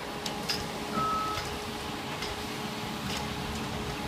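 Compact track loader's engine running steadily, with one short high electronic beep about a second in.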